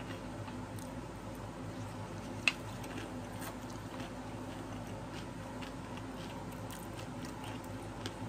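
A person chewing a mouthful of papdi chaat, with small crunches and clicks and one sharp click about two and a half seconds in, over a steady low hum.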